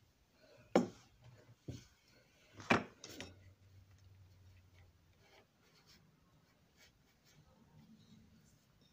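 Hands handling a small model locomotive chassis on a wooden workbench: a few sharp knocks and taps in the first three seconds, the loudest about a second in and again near three seconds, then faint rubbing and ticks.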